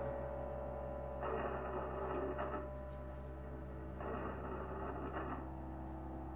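Experimental noise-drone sound art: a steady low hum with held tones underneath, and a hissing, grainy noise texture that swells in twice for about a second and a half each time.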